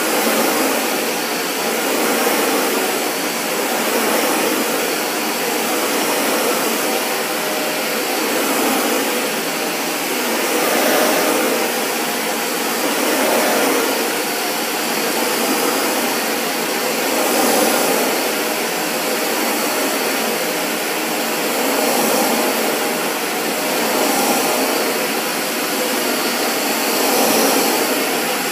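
Dyson DC40 Animal upright vacuum cleaner running steadily on a hard floor, its sound swelling and easing about every two seconds as it is pushed back and forth.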